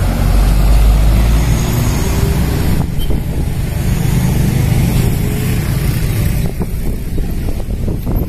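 Road traffic: a tour bus passes close by with a loud low engine rumble over the first three seconds. After that, motorcycles and cars go by in a steady mix.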